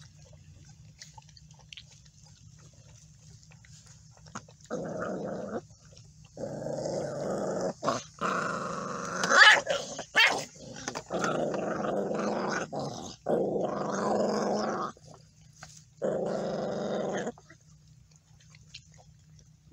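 Pit bull puppies growling at one another over food while they eat: about six growling bouts of a second or two each, with two sharp, higher yelps about halfway through as the loudest moments.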